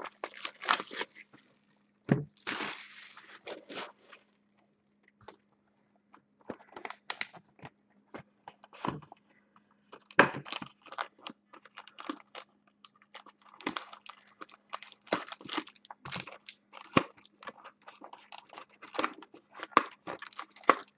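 A sealed trading card box being unwrapped and opened by hand: plastic shrink wrap crinkling and tearing in the first few seconds, then a cardboard box and lid being lifted and handled, with scattered clicks and crinkles. There is a short lull a few seconds in.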